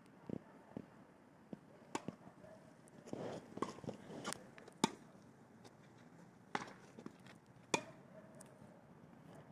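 Irregular sharp knocks of a tennis ball being hit and bouncing, with footsteps on the court; the sharpest knocks come about five and eight seconds in.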